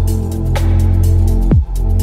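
Electronic background music with deep, sustained bass and a drum beat, one heavy kick about one and a half seconds in and regular high ticks between.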